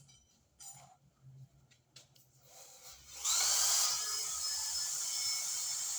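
Metal lathe switched on about three seconds in: its motor and spindle spin up quickly and then run at a steady speed with a high whine. A few faint clicks come before it starts.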